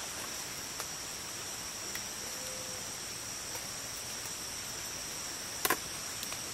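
Steady high-pitched chorus of rainforest insects. A few sharp clicks sound over it, the loudest a double click near the end.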